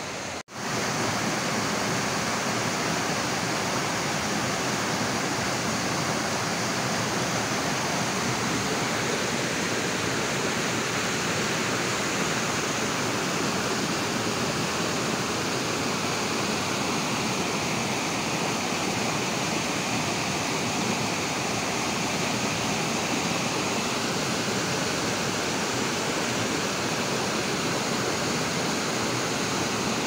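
Small waterfall cascading over rocks into a stream pool: a steady, loud rush of falling and churning water. The sound cuts out for a moment about half a second in, then resumes just as steady.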